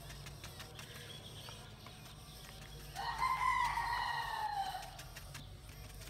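A rooster crowing once, a single held call of about two seconds starting about three seconds in, its pitch sagging slightly at the end.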